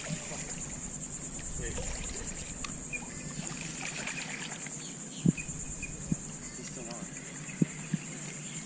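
Insects trilling steadily in a high, fast-pulsing chorus, with two short thumps about five seconds in and again two seconds later.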